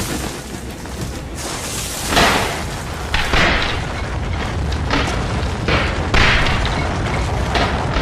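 Dubbed train-crash sound effects of rolling stock tumbling down a bank: a continuous heavy rumble broken by loud crashes and thuds about once a second.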